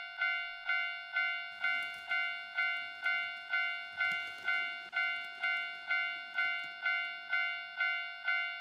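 Level-crossing alarm on an N-gauge model railway, sounding the Japanese crossing's repeated bell-like ding about twice a second. A rattle of the model train running on the track joins about one and a half seconds in and dies away by about five seconds.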